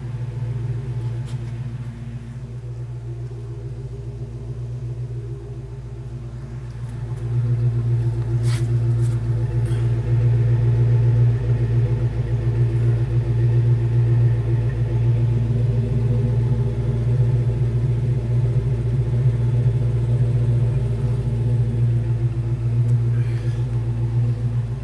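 1987 Ford Mustang GT's 5.0-litre V8 idling steadily at the exhaust, a low, even rumble that grows louder about seven seconds in.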